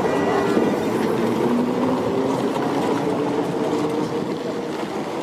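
Tram running along its street track, heard from inside the car: steady wheel and motor noise.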